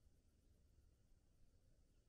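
Near silence, with only a faint low rumble.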